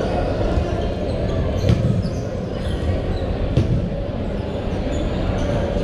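Echoing sports-hall din during a dodgeball game, with two sharp impacts of dodgeballs striking about two seconds apart.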